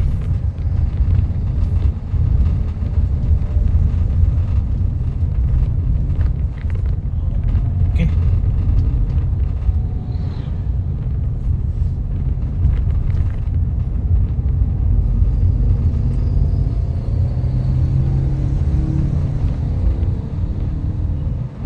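Steady low rumble of a road vehicle driving along.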